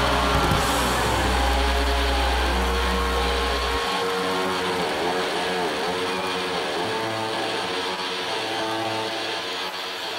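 Live rock band's amplified sound ringing out: a heavy bass drone under sustained, wavering distorted guitar tones. The bass drops out about four seconds in, and the guitar tones carry on, slowly fading.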